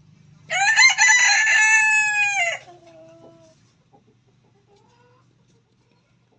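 A rooster crowing once, a loud call of about two seconds that drops in pitch at the end, followed by a few faint clucks.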